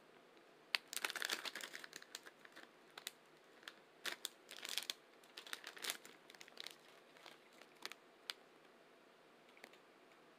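Aluminium foil crinkling and rustling in irregular spells, loudest about a second in and again around four to five seconds, with scattered small clicks in between.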